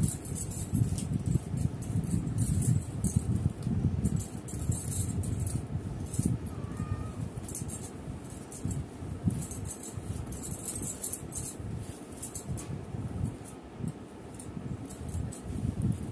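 Bangles on the wrists jingling and hair rustling in irregular bursts as hands run through long hair, over a low uneven rumble of movement.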